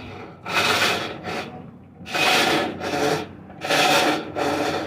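Colormaq top-load washing machine agitating at water level 4 with an unbearable rasping, rubbing noise on each agitator stroke, roughly one every second and a half, over a steady low motor hum. The noise comes only at level 4, where the shaft and agitator sit a little lower, which the repairer gives as its cause.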